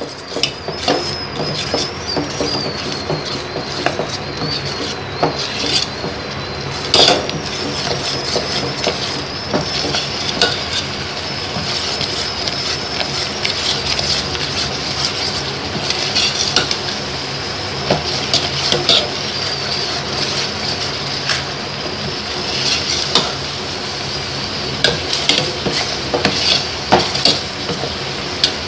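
Steel ladle stirring rice flour into thick, hot jaggery syrup in a stainless steel pot, scraping and knocking irregularly against the pot's sides and bottom, over a steady hiss.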